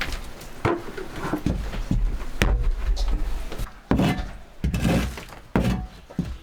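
A handful of irregular knocks and thuds, spread a second or so apart, over a low background rumble.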